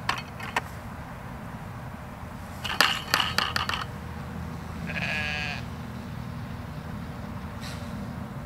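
A sheep bleats once, about five seconds in. A couple of seconds earlier comes the loudest sound: a quick run of sharp clicks and knocks as the air hose and its fittings are handled at the buckets.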